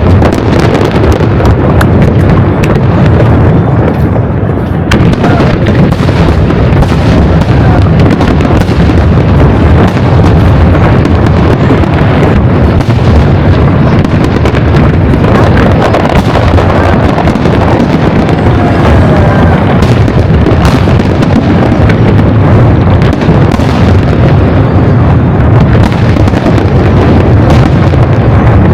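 Fireworks exploding in a dense, unbroken barrage: deep booms overlapping with sharp cracks and pops, loud throughout.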